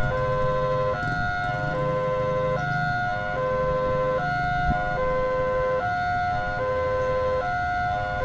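Indonesian railway level-crossing warning siren sounding its electronic two-tone alarm, a higher and a lower note alternating about every 0.8 seconds, signalling an approaching train as the crossing barriers come down.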